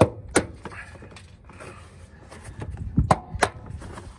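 Plastic door sill trim panel of a Toyota Tundra being pried up by hand, its retaining clips popping loose in sharp snaps: two near the start and a quick cluster of three about three seconds in.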